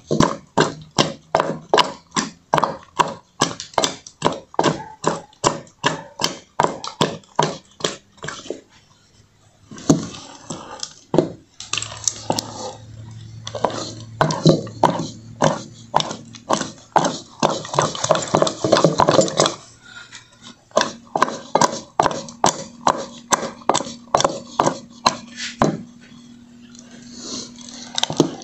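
A wooden spoon beats a thick, sticky pé de moleque mixture of rapadura, milk and peanuts in a cast-iron pot, knocking against the pot about three times a second. The beating stops briefly about eight seconds in and then resumes. This is the hard beating that makes the candy start to stiffen and turn paler.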